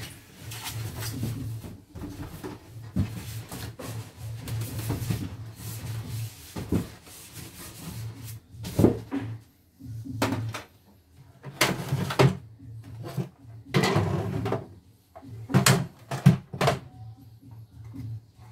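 Plastic parts of a portable computerised embroidery machine being handled as its embroidery unit is unlatched and lifted off the machine bed: a run of irregular plastic knocks and clicks, loudest in the second half, over a steady low hum.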